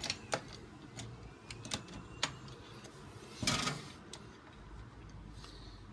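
Scattered light clicks and taps of CPU cooler hardware being handled and fitted onto a motherboard, with a longer scraping rustle about three and a half seconds in.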